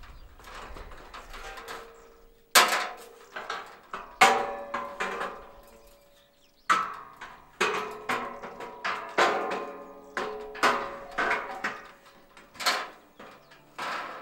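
Steel scaffold tower knocking and clanking as someone climbs and steps about on it: an irregular string of about a dozen sharp knocks, each with a short metallic ring.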